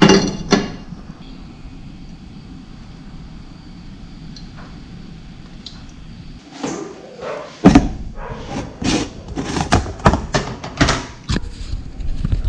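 Kitchen handling noises at a gas stove: two sharp clanks at the start as a frying pan goes onto the lit burner's grate, a few seconds of low steady background, then from about six and a half seconds in an irregular run of knocks and rattles, about two a second, as a plastic bowl of breaded fish is handled.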